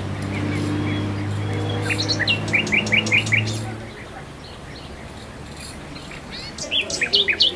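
Birds chirping: a quick run of short, sharp chirps about a third of the way in and another run near the end. Under them a steady low hum fades out about halfway.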